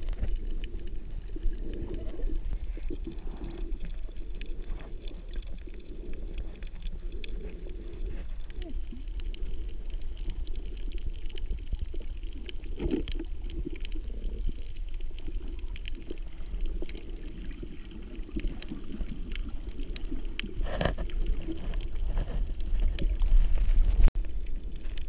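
Underwater sound heard through a submerged camera: muffled rushing and gurgling of water with scattered faint clicks, growing louder near the end as a swimmer kicks with fins.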